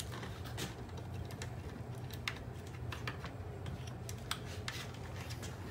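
Scattered light clicks and taps of a screwdriver and small parts being worked in a robot vacuum's opened plastic chassis, over a steady low hum.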